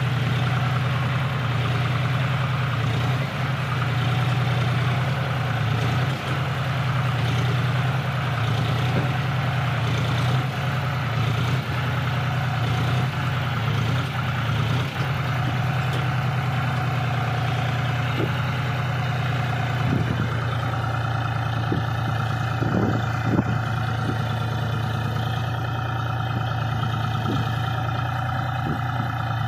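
John Deere tractor's diesel engine running steadily under heavy load as it pulls a brick-laden trolley stuck in sand. A few short knocks come about two-thirds of the way through.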